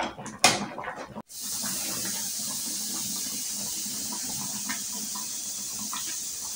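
Two sharp clinks of a metal ladle and spoon against a plate, then, after a sudden cut, a steady hiss of the fish and mung bean soup boiling in an aluminium pan on the stove, with a few faint small clicks.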